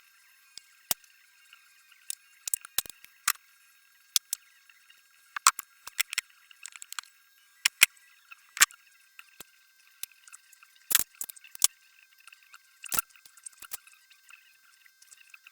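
Hand tools working on metal in an engine bay: scattered sharp clicks and clinks at irregular intervals, some in short clusters, with about a dozen louder ones.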